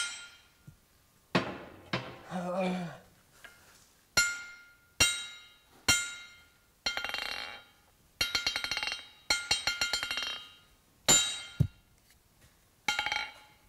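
A 3-pound steel cross-peen hammer, forged from train-rail steel, striking the bare face of an anvil. Single blows ring out each time, then come quick runs of light rebounding taps, several to a second, then a few more single blows.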